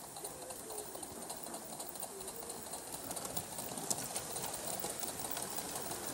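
Gauge 1 Aster Rebuilt Merchant Navy live-steam locomotive simmering in steam, with a fine rapid crackle and ticking and one sharper tick about four seconds in. Faint pigeon-like cooing in the background.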